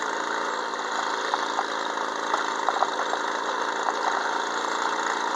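Peugeot 103 MVL moped's 50 cc two-stroke single-cylinder engine running steadily under way, with a few short clicks here and there.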